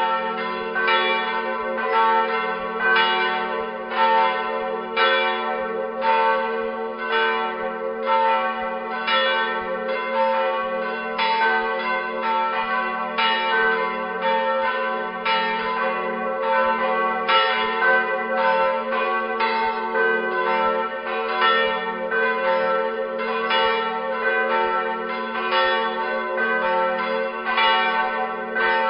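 Church bells ringing together in full peal, several swinging bells striking over and over in an overlapping, continuous clangour with a sustained low hum beneath the strikes.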